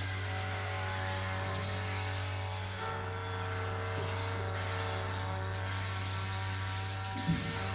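Steady, engine-like droning hum of many sustained layered tones over a strong low hum, the upper tones shifting to a new pattern about three seconds in. A short thump near the end.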